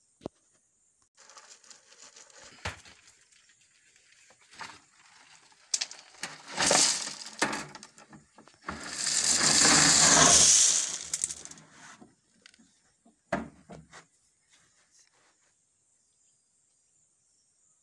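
Crushed-stone chippings poured from a plastic container onto a concrete floor: small clatters of stones, then a long rattling rush of gravel for two or three seconds in the middle as the load is emptied, and a few last stones clicking down afterwards.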